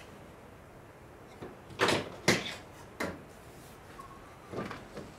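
Wooden boards knocking and clacking against each other and the workbench as they are handled and set in place, a series of sharp knocks starting about a second and a half in.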